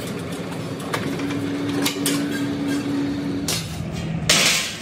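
Motor-driven three-roll plate bending machine running with a steady hum while it rolls a steel strip into a wheel-rim hoop, with scattered knocks of the sheet metal on the rollers. The hum steps up in pitch about a second in and drops about 3.5 s in; a short loud hiss comes near the end.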